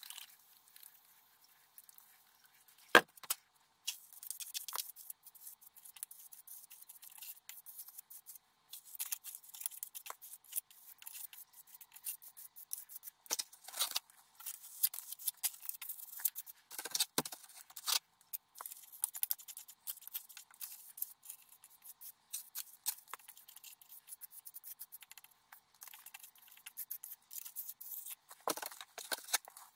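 A Japanese plastering trowel scraping and smoothing lime render on a wall: irregular gritty scratching strokes with small clicks, and one sharp knock about three seconds in.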